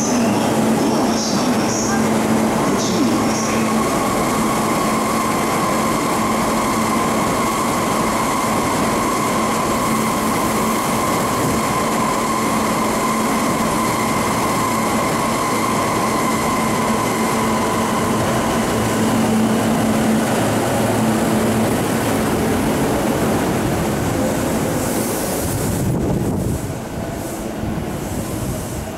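JR E233 series 7000 electric commuter train at the platform, then pulling out: a steady electrical hum and whine over rolling rail noise, which drops away about 26 seconds in.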